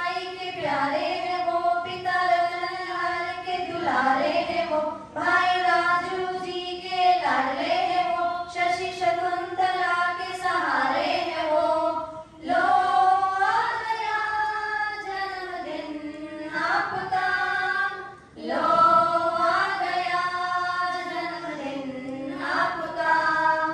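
Women singing a song in long held phrases, with short breaks between phrases every five to seven seconds.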